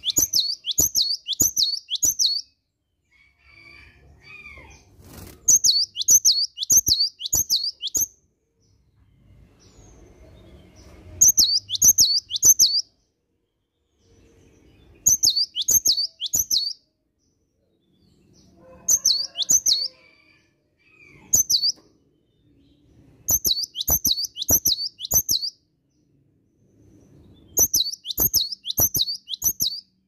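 Cinereous tit (gelatik batu) singing: bursts of four or five quick, sharp whistled notes, each falling in pitch. A new burst comes every few seconds, about eight in all.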